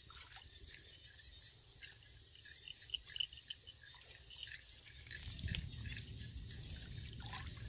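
Faint sloshing and dripping of shallow muddy paddy water around a woven bamboo plunge basket being pressed and worked into the mud, with a few small splashes.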